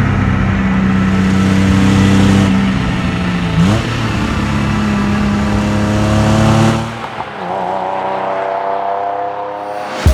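Porsche 993 Carrera's air-cooled, naturally aspirated flat-six pulling steadily under throttle, with a quick jump in revs about a third of the way in. About seven seconds in it drops quieter and its pitch climbs slowly until a sharp click at the very end.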